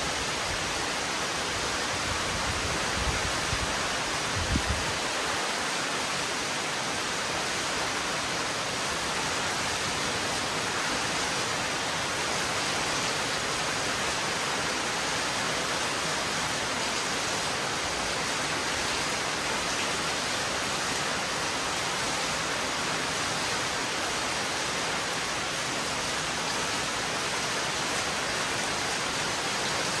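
Heavy, steady rain falling, a dense, even hiss. There are a few brief low thumps in the first five seconds.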